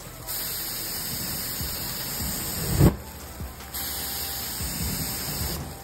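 Two long hissing sprays from a hand sprayer misting over a grill, with a short thump just as the first spray ends.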